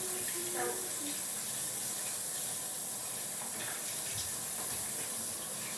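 Kitchen sink tap running steadily as sticky, egg-covered hands are washed under it.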